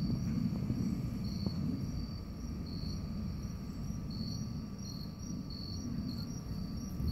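Insects chirping in short, high-pitched pulses that repeat every half second or so, with a steadier high tone alongside, over a low rumbling noise.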